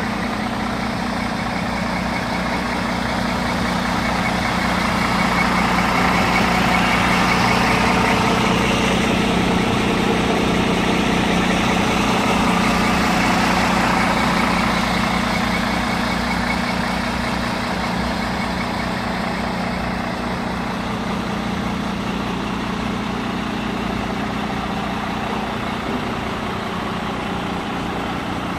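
MAN 19.463 tractor unit's straight-six diesel engine idling steadily, louder for a stretch in the middle.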